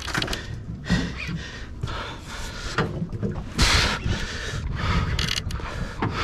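An angler breathing hard and panting while fighting a hooked tuna on a bent rod, with irregular rushes of noise on the microphone, loudest about halfway through.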